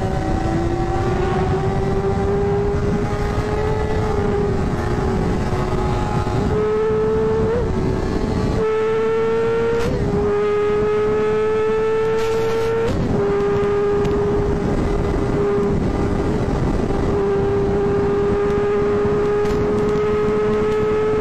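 An engine held at high revs during a fast run. Its note climbs slowly, with a short jump and dip in pitch every few seconds, under steady rushing wind and road noise.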